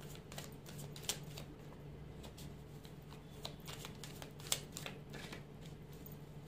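Tarot cards being shuffled by hand, passed from one hand to the other: a string of soft, irregular card flicks and slaps, with sharper snaps about a second in and again about four and a half seconds in.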